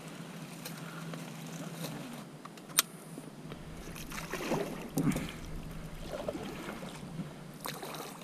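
Water sloshing and splashing around a small boat, with a sharp knock about three seconds in and heavier splashes around five seconds in.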